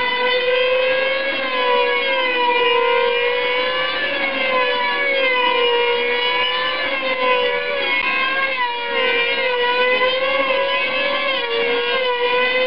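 Two F2D control-line combat model aircraft running their 2.5 cc two-stroke engines flat out in a high, continuous whine. The two pitches rise and fall and cross each other as the planes circle and manoeuvre.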